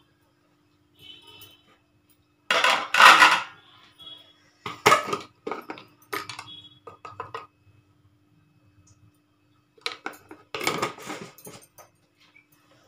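Metal kitchen pots and utensils clattering and clinking as they are handled: a loud clatter about two and a half seconds in, a run of lighter clinks, and another clatter around ten seconds in, over a faint steady hum.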